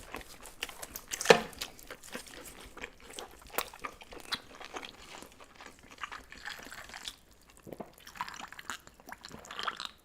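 Wet biting and chewing of seafood: irregular crunches, clicks and mouth smacks, with one sharp, louder bite about a second in.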